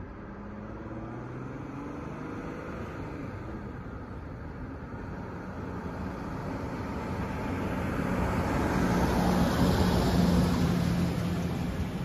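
A fire truck driving past, its engine and tyre noise building to a peak about ten seconds in, then fading as it pulls away.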